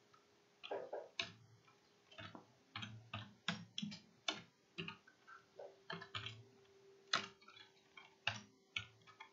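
Typing on a computer keyboard: irregular keystrokes, a couple a second, entering a command, over a faint steady hum.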